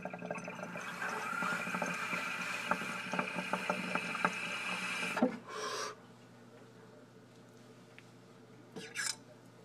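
Water bubbling and gurgling through a glass recycler dab rig as air is drawn through it, with many small pops over an airy hiss. It stops with a click about five seconds in, followed by a short rush of air.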